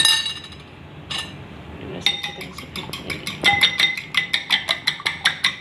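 Raw eggs being beaten by hand in a glass bowl: a couple of single clinks, then from about two seconds in a fast, even clicking of the utensil against the glass, about five strokes a second.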